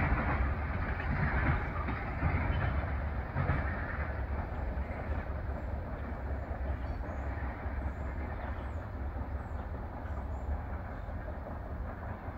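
Freight train of empty tank cars rumbling on the rails as it moves away, slowly fading, with a few wheel clacks over rail joints in the first few seconds.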